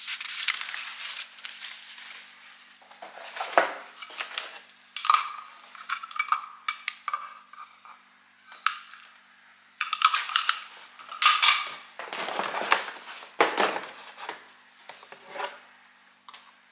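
Hard objects and packaging being handled: irregular clattering, clicking and rustling in short bursts with brief pauses, as a new coffee machine and its packaging are handled.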